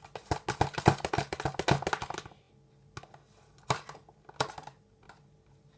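Shaving-foam slime being mixed: a rapid run of small clicks and squishes for about two seconds, then a few single clicks.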